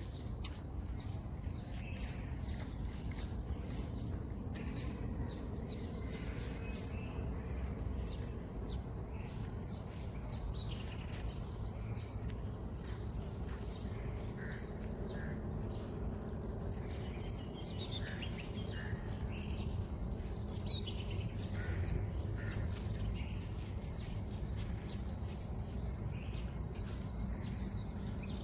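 Outdoor insect and bird chorus: a steady high-pitched insect drone throughout, with many short, scattered bird chirps and calls over a low background rumble.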